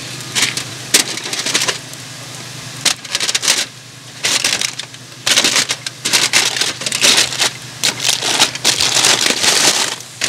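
Aluminium foil pack being cut open with a pocket knife: irregular crinkling and tearing of the foil, over a steady low hum.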